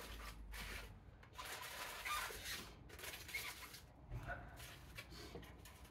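Aluminum foil crinkling and rustling in irregular bursts as gloved hands press it down inside a plastic storage tub, with a soft knock about four seconds in.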